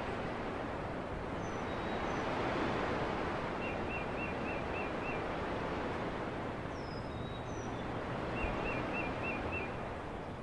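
Outdoor nature ambience: a steady rushing wash of noise with a small bird calling, two quick runs of about six repeated notes and a few higher thin whistles.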